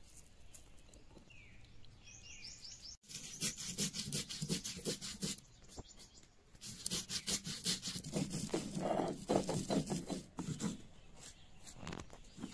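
Stone roller rubbed back and forth over a flat grinding stone (sil batta), crushing a wet spice paste: rapid rhythmic scraping in two spells, the second longer. A few faint bird chirps come before it.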